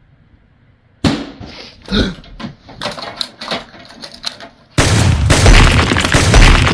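A sudden loud bang about a second in, then a string of irregular sharp knocks and bangs, and near the end a much louder, continuous crashing and smashing.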